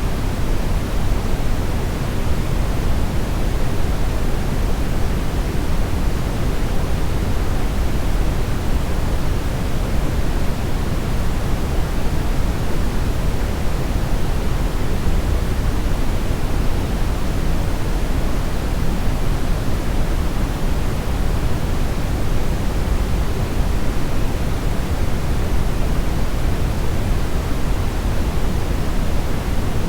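Steady synthetic brownish noise: an even, unchanging rushing hiss weighted heavily toward the low end, with no other events.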